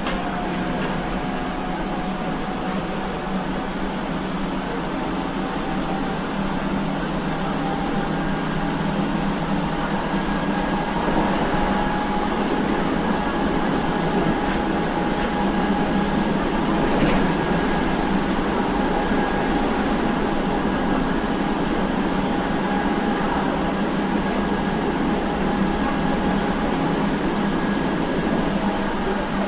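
Osaka Municipal Transportation Bureau 66 series subway train (early-batch GTO-VVVF car) running between stations, heard from inside the car: a steady rumble of wheels on rail with a faint whine that rises slightly in pitch, growing a little louder over the first half.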